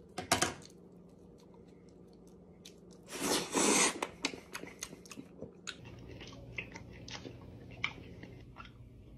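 Close-up mouth sounds of a man biting into and chewing a blackened banana. There is a sharp bite just after the start and a louder noisy crunch about three seconds in lasting nearly a second, then a run of wet chewing clicks and smacks.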